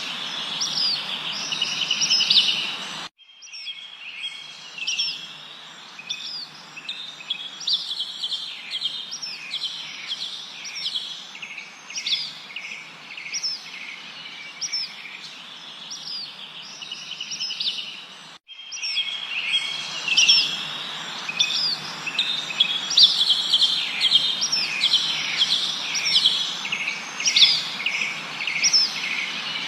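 A chorus of many small birds chirping and trilling rapidly over a steady background hiss. The sound cuts off abruptly about three seconds in and again at around eighteen seconds, picking up at once each time, more faintly after the first cut and louder after the second, like joins between separate recordings.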